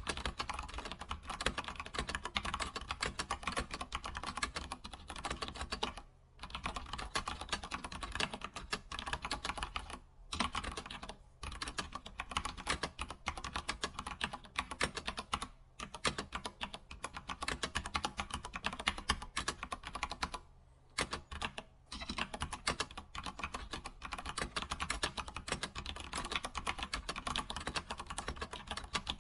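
Computer keyboard typing: a fast, steady run of key clicks, broken by a few short pauses of under a second.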